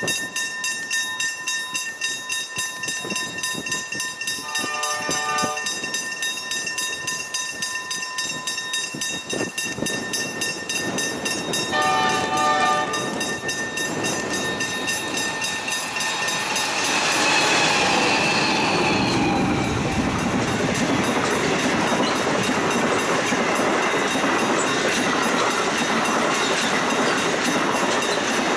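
NR-class diesel-electric locomotives hauling the Great Southern passenger train: two short chord-horn blasts on the approach, about five seconds in and again about seven seconds later, over a steady ringing level-crossing bell. From about sixteen seconds in, the locomotives pass and then the long rake of carriages rumbles and clatters over the rails until the end.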